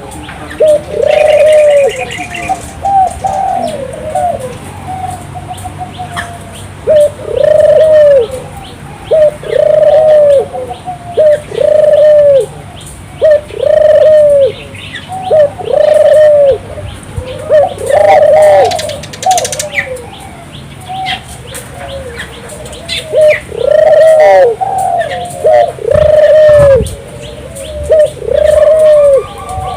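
Burung puter (ringneck dove) cooing persistently: loud, repeated coos come every second or two, with only short breaks between them. Smaller birds chirp faintly in the background.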